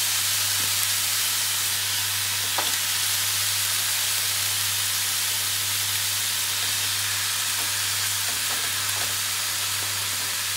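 Marinated pork pieces sizzling on the hot ribbed plate of an electric contact grill: a steady frying hiss over a steady low hum, with a few faint ticks as more pieces are laid down.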